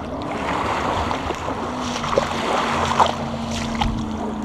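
Wind buffeting the microphone and water sloshing, over a steady low hum, with a few faint clicks.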